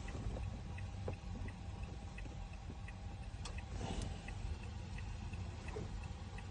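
Hazard flasher of a 2014 Toyota Camry ticking steadily, about two to three ticks a second, over a low steady rumble.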